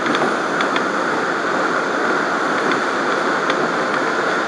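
An R179 subway car rolling along elevated track, heard from inside the car: a steady running noise of wheels on rail, with a few light, irregular ticks.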